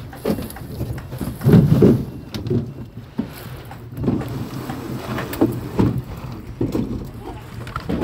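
Fishing-harbour ambience: a boat engine running steadily, with faint voices and a few knocks.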